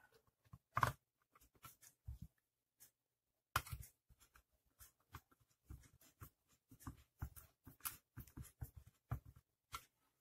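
Faint, irregular clicks and knocks of a plastic iron housing being handled and seated, with a screwdriver turning a screw into the housing at the iron's tip in the second half.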